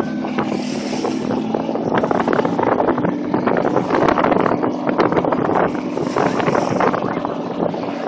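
650-horsepower jet boat running flat out with a steady engine drone, mixed with wind gusting on the microphone.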